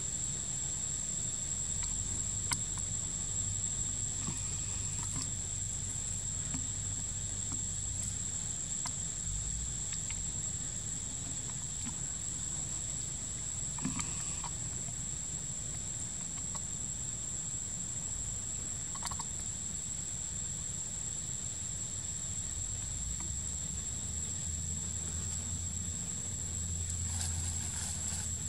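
Steady high-pitched drone of insects, held unbroken, over a low rumble, with a few faint clicks scattered through it.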